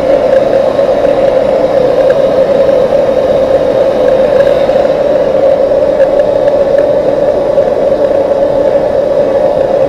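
Handheld heating tool running steadily, a loud even rush, heating a fork leg part clamped in a vise to free it for unscrewing.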